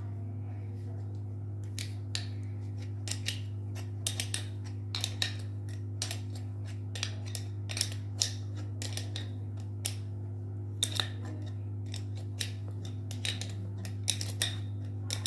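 Irregular metallic clicks and taps of hand tools working on a ceiling fan's motor while its ball bearing is pulled off the shaft, over a steady low hum.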